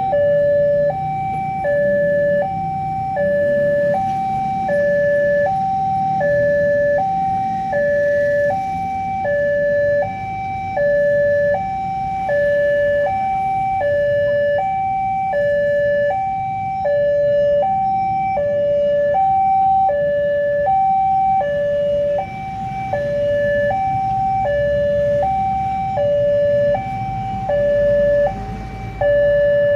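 Railway level-crossing alarm sounding from its pole-mounted loudspeaker: an electronic two-tone signal alternating steadily between a high and a low note, about one pair a second, warning that a train is coming and the barrier is down. A low rumble runs underneath.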